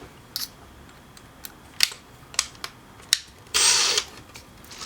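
A 2.5 mm drill bit being fitted into a drill's chuck: scattered sharp clicks, with a short rasping burst of chuck noise about three and a half seconds in.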